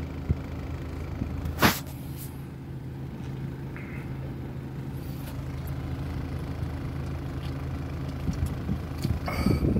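Car engine idling, a steady low hum heard from inside the cabin, with one sharp click about two seconds in. Gulps of soda near the end as a can of root beer is chugged, followed by a burst of breath.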